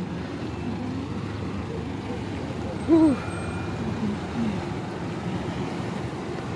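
Steady hum of congested road traffic, vehicles running slowly in a jam. About three seconds in, a short hoot-like call rises and falls once, followed by a couple of fainter ones.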